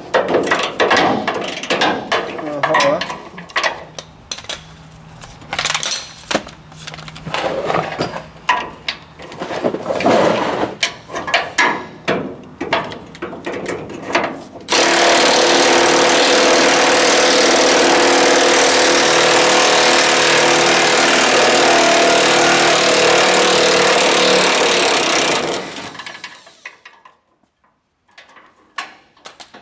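Clicks and clanks of a ratchet and socket working a truck bed-mount bolt through a long extension bar. About halfway in, a power wrench runs steadily on the bolt for about ten seconds, loosening it to take the bed off the frame, then stops suddenly, leaving faint clinks.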